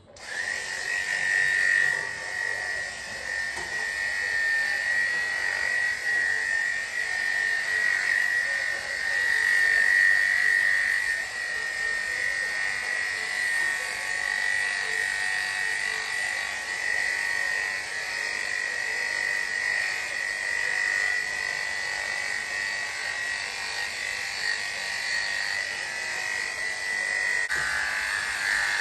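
Electric dog grooming clippers switched on right at the start and running steadily, a high buzzing whine as the blade is run through the dog's coat; near the end the whine drops a little and roughens.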